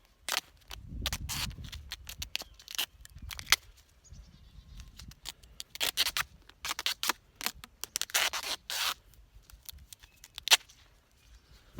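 Duct tape being pulled off the roll in a series of quick rips and torn, as it is wrapped around a jar.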